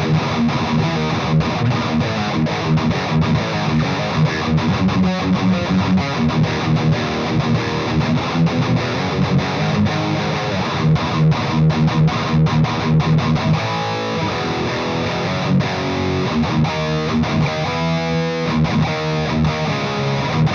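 Heavily distorted electric guitar played through a Splawn Quickrod 100 amp on its first-gear overdrive channel, boosted by a KHDK Ghoul Screamer pedal and heard through a 1x12 cab with Celestion Greenback speakers. Chunky low riffing, turning to fast repeated picked notes in the last several seconds.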